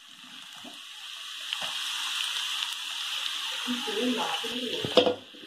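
Chopped onions frying in hot oil in a kadai as a steel spoon stirs them, the sizzle growing louder. A sharp knock near the end.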